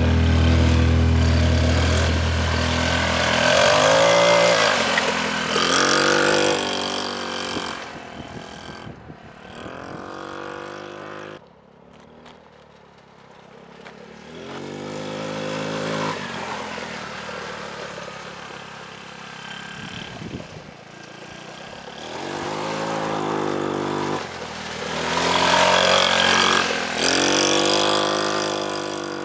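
150cc go-kart buggy's engine revving up and down as it drives over dirt, louder as it comes near about five, sixteen and twenty-six seconds in and fading when it is farther off around the twelve-second mark.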